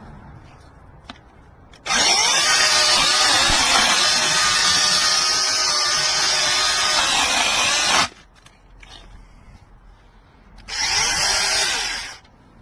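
Cordless brushless mini chainsaw running at full speed for about six seconds, then a second, shorter burst of just over a second near the end.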